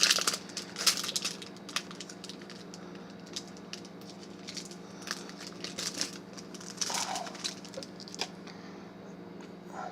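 A 2016 Bowman Chrome baseball card pack wrapper crinkling and tearing as it is opened, with sharp crackles thickest in the first couple of seconds and again around five to eight seconds in. A steady low hum runs underneath.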